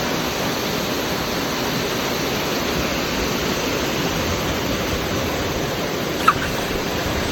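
Waterfall's rushing water: a steady, even roar that holds level throughout.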